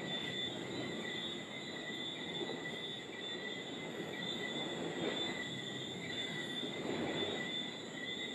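Night ambience: a steady, high-pitched insect chorus holds a constant pitch over a low, uneven background rumble that swells now and then.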